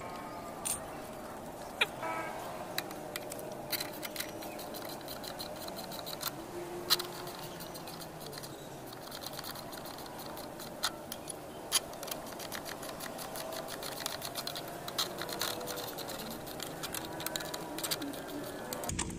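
Scattered sharp metallic clicks and taps of a wrench turning the bolts of a homemade plate-and-bolt puller on a scooter's CVT roller boss, over a faint steady background.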